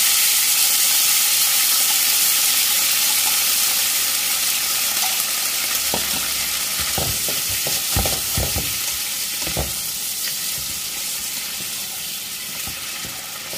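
Tilapia pieces sizzling hard in a hot frying pan just after water is added, the sizzle slowly dying down. From about six seconds in, a spatula scrapes and knocks against the pan several times as the fish is turned.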